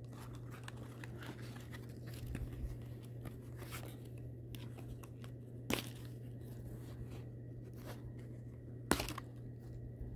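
Cardboard and plastic toy packaging being torn and worked open by hand: crinkling and tearing, with two sharper snaps, one a little before halfway and one near the end.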